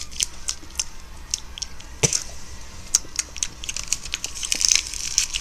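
Irregular light clicks and taps from small hard objects being handled, a few to several a second, with one louder knock about two seconds in.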